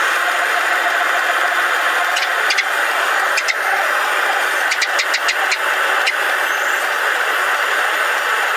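Propane forge burner running with a steady hiss. A few light metallic clicks of steel tongs handling the blade come around the middle.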